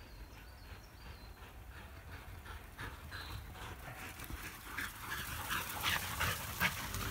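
A dog panting in quick, rhythmic breaths that grow steadily louder.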